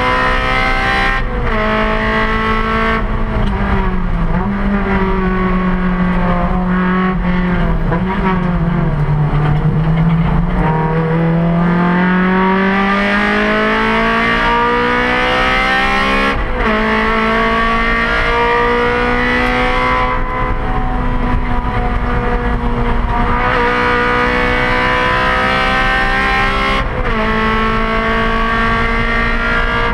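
A Honda race car's four-cylinder engine under hard driving, heard from inside the stripped cabin: the revs climb steadily and drop sharply at gear changes about a second in, around the middle and near the end, with a stretch of falling revs while the driver eases off.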